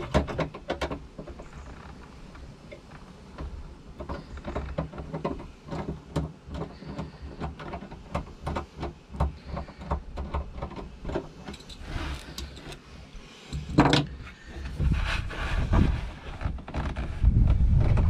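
Irregular clicks, knocks and scrapes of hands working among the rubber intercooler hoses, clamps and plastic parts of a jet ski's engine compartment, with one louder knock near the middle. Dull rubbing and bumping come in near the end as a sleeve brushes close by.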